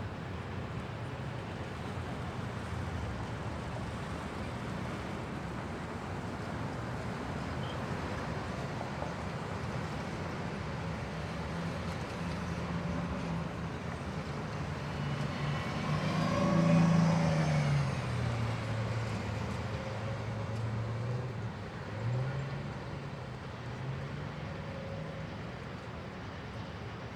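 A motor vehicle passing close by over steady traffic noise: its engine gets louder to a peak about 17 seconds in, then drops in pitch as it moves away. A second, smaller swell of engine sound comes a few seconds later.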